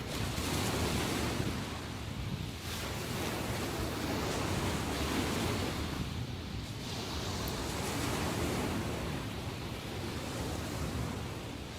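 Sea waves breaking and washing ashore, the surf swelling and easing in repeated surges a few seconds apart.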